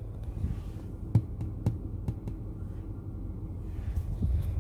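Steady low rumble inside a parked car, with a few light clicks and taps, the sharpest about a second in.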